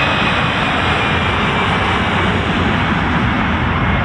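Airbus A320 airliner's twin jet engines running loud as it rolls past along the runway, a steady roar with a high whine in it that slides slowly down in pitch as the aircraft passes.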